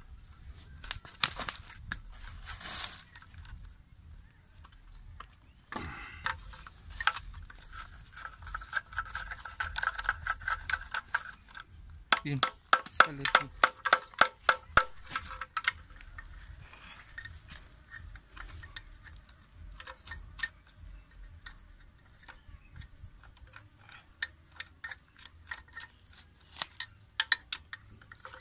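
Rapid metallic clicking of a ratchet wrench working the bolts of a car engine's oil pan, in runs of a few seconds with loud, even clicks about a third of the way in and again near the end, among scattered knocks of tools on metal.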